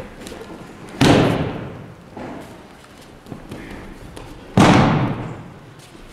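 Two loud slaps of an aikido partner's breakfalls hitting the tatami mats, about three and a half seconds apart, each echoing in the large hall.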